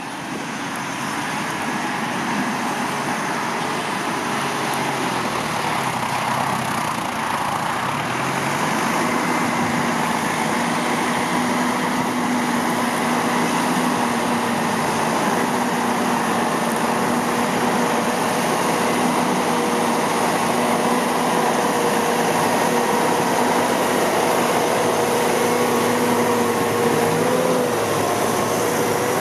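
Massey Ferguson 445 tractor's diesel engine running steadily as the tractor pushes soil with its front blade. It is a constant drone that grows a little louder over the first couple of seconds.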